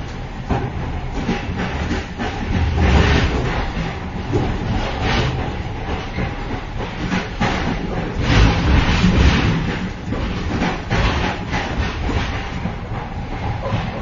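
Moving train heard from inside a vestibule between cars: a steady rumble of wheels on rail with clattering knocks, swelling louder about three seconds in and again around eight to nine seconds.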